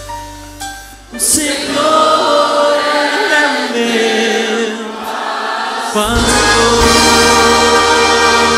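A man singing a slow worship song over instrumental accompaniment with backing voices. The music is low at first, swells in about a second in, and grows fuller with added bass about six seconds in.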